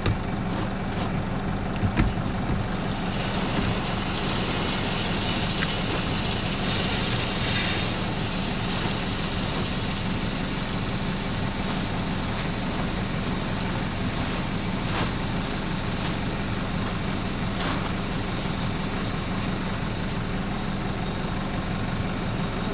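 Tractor diesel engine idling steadily, held at idle because the tractor is in limp mode. A steady hiss joins it a few seconds in, strongest about seven seconds in.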